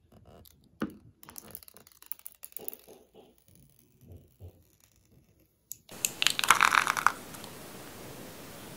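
Light clicks and crinkles of clear plastic protective film being peeled off and handled on an iPhone 11. About six seconds in, background hiss rises and a louder burst of rustling lasts about a second.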